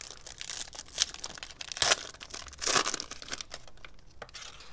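Foil wrapper of a Panini Prestige football card pack crinkling as it is torn open by hand, with sharp rips about a second in, near two seconds and near three seconds, the last two the loudest.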